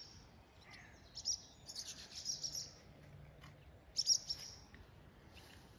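Barn swallows twittering: short clusters of high chirps, three main bursts a second or two apart, with fainter calls between.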